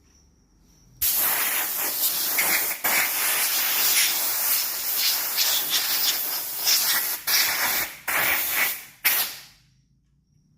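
Compressed-air blow gun blasting air to clean fuel system parts: a loud hiss that starts abruptly about a second in, breaks off briefly several times as the trigger is released, and stops near the end.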